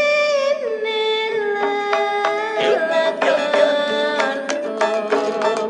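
Music: a melody of held, stepped notes with rich harmonics and a brief pitch glide a little under halfway, with light percussion hits coming in during the second half.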